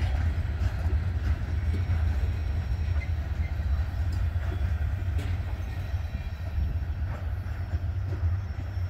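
Coal hopper cars of a long freight train rolling past: a steady low rumble of steel wheels on the rails, with a few faint clicks.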